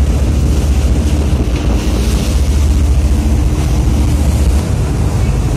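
A passenger river boat's engine running with a steady low rumble, with wind buffeting the microphone.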